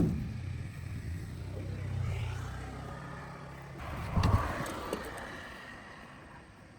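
A sharp knock, then a vehicle engine running with a steady low hum, a louder burst about four seconds in, and then fading away.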